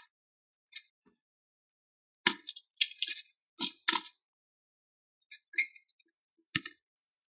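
Spoked bicycle wheels and small tyred wheels being shifted by hand, their metal rims and spokes clinking and rattling against each other. A quick cluster of clinks comes a couple of seconds in, a few more follow, and a duller thump near the end.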